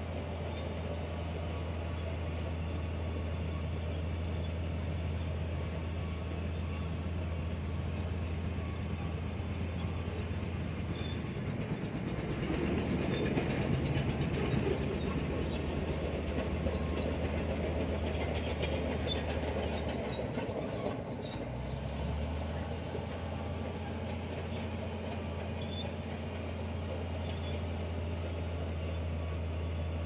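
Diesel engine of a heavy earthmoving machine running steadily under load while pushing gravel. It grows louder with added rumble through the middle, and its engine note drops in pitch about two-thirds of the way through.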